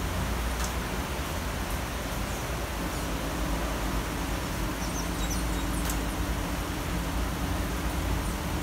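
Steady rain falling on trees in a city, an even hiss over a low rumble of the city. A few faint high chirps come through about five to six seconds in.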